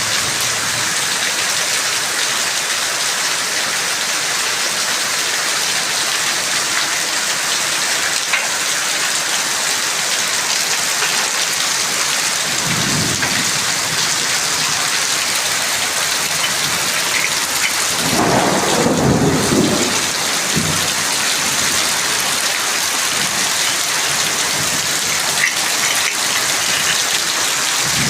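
Heavy rain pouring down steadily, with a low rumble of thunder about twelve seconds in and a longer, louder one about a second or two later than halfway through.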